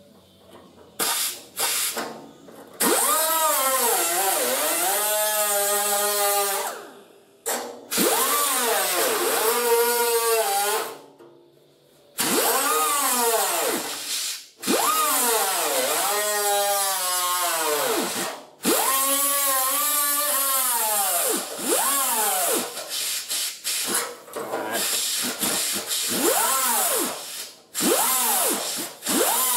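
Electric grinder with an abrasive disc working on car-body sheet steel, run in repeated bursts of a few seconds with short pauses between; the motor's whine rises and falls in pitch as the disc is pressed on and eased off the metal.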